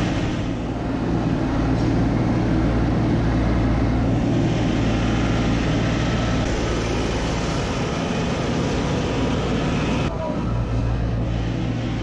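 Skid steer loader's engine running steadily at working speed as it lifts and carries a stack of hay bales, with a brief shift in the sound about ten seconds in.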